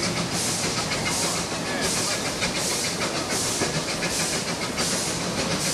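Queensland Railways A10 class No. 6 steam locomotive heard from its own footplate, moving slowly: a steady beat of hissing exhaust chuffs, about three every two seconds, over the rumble of the engine running.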